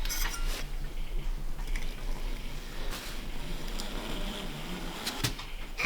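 Small notched trowel scraping over the sub-deck as it spreads flexible adhesive, an uneven scratchy rasp broken by a few sharp clicks and knocks.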